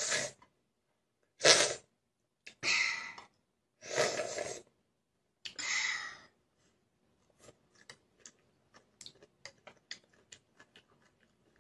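A child slurping a long strand of cooked greens: five loud sucking slurps in the first six seconds, then soft, clicking chewing sounds.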